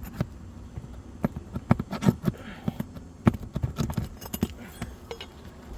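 Metal roof snake tapping and clinking against roofing nails under asphalt shingles as a nail is worked loose: a run of irregular sharp taps, the loudest about two and three seconds in.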